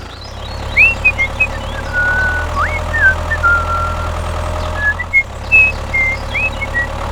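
Steady motor hum of a miniature toy tractor on the move, changing in level a couple of times, with short high chirps scattered over it.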